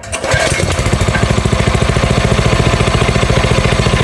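Engine of a well-drilling machine running steadily, with an even, rapid pulse.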